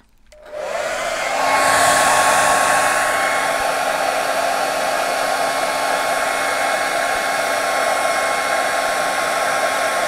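Handheld hair dryer switched on about half a second in, its motor whine rising briefly as it spins up. It then runs steadily at full blast: rushing air with a constant whine.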